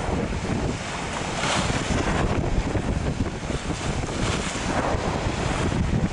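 Wind buffeting the microphone over choppy sea water washing against a stone pier, with the wash swelling every few seconds.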